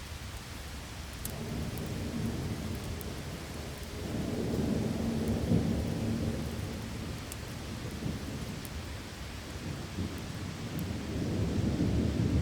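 Steady heavy rain with rolling thunder rumbling in low swells, building about a second in, again around four seconds in, and near the end.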